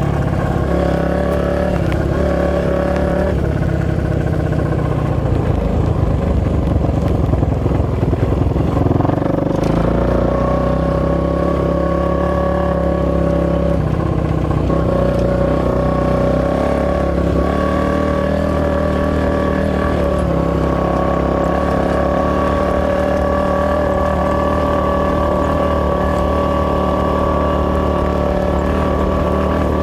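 Single-cylinder 450cc four-stroke off-road engine running loudly. Its pitch wavers with throttle changes for the first several seconds, then holds nearly steady.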